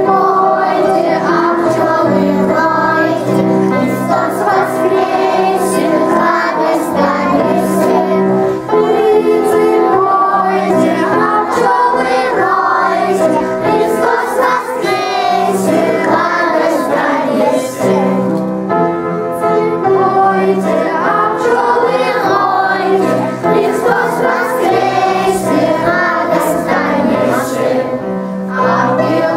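A mixed group of children and adults singing a song together as a choir, over steady instrumental accompaniment.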